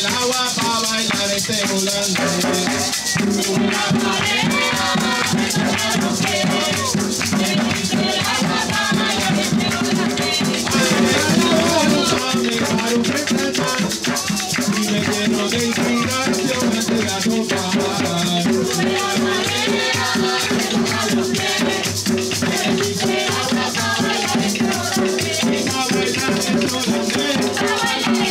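Puerto Rican bomba music: a maraca rattling steadily in rhythm over drums, with singing.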